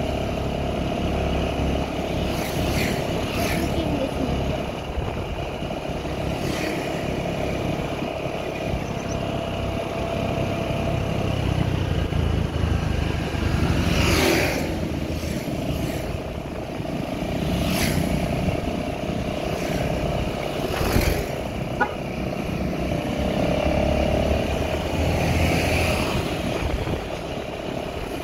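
Small motorcycle engine running steadily under way, with wind and road noise on the microphone and several brief swells of noise.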